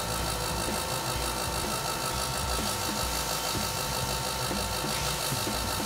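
Two electric diesel fuel lift pumps on a filter test stand running steadily, giving a continuous whirring hum as they circulate a diesel fuel and water mix through the filters, each pump primed after a brief burping of air.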